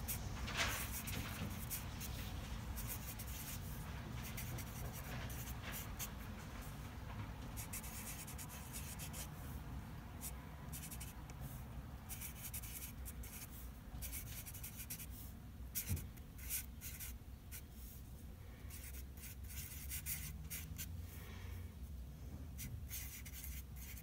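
Sharpie felt-tip marker writing on paper: a run of short, irregular scratchy strokes as words are written out, over a low steady room hum.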